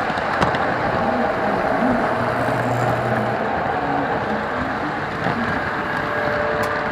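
Model train rolling along its track, heard from a camera riding on one of the cars: a steady rolling noise of wheels on rail with a few sharp clicks.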